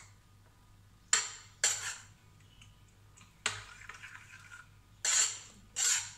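Metal spoon stirring yogurt raita in a ceramic bowl, scraping and clinking against the bowl in five short, unevenly spaced strokes.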